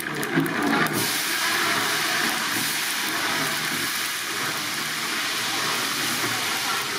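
Hot oil with whole spices sizzling in a large pan. It crackles and spits for the first second, then settles into a steady loud hiss from about a second in, as green chillies go into the oil.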